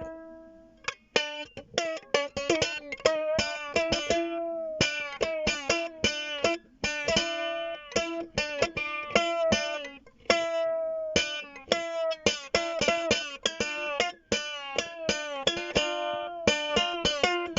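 A guitar played solo: a quick, continuous run of picked notes, broken by a few brief pauses.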